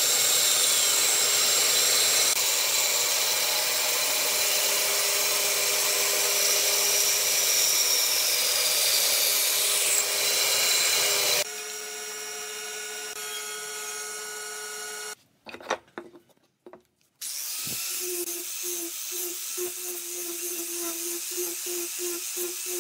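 A band saw cutting through softwood, running steadily for about the first eleven seconds. After a sudden change, another woodworking machine runs more quietly for a few seconds. A brief gap with a few knocks follows, and then an angle grinder with a sanding disc shapes wood, its pitch wavering as the disc bites.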